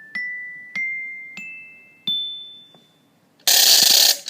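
Glockenspiel playing single struck notes that step upward in pitch, each left to ring, four in all. About three and a half seconds in comes a short, loud hissing burst, the loudest sound.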